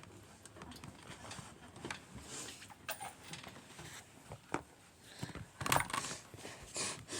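Scattered knocks, clicks and rustling from a backpack being fetched and handled, getting louder and busier in the last couple of seconds.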